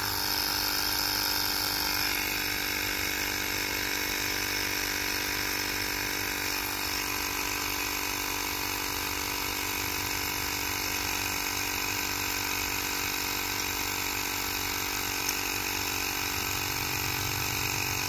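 Ryobi cordless tire inflator running steadily, pumping air into a freshly mounted dirt bike tire to seat the bead, which usually pops up at about 16 to 20 psi. Its battery is running a little low.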